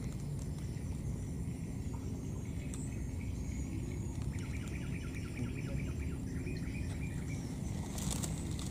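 Outdoor ambience: a steady low rumble, with a rapid chirping trill of about six notes a second for a couple of seconds in the middle and a sharp click near the end.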